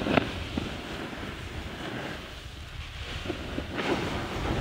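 Wind buffeting the microphone, a steady low rumble, with a few brief knocks or clatters near the start and again near the end.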